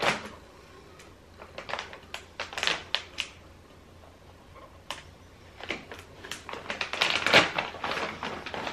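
Crinkly plastic treat bag being worked open by hand: irregular crackles and rustles, sparse at first and turning to a dense run of crackling about seven seconds in.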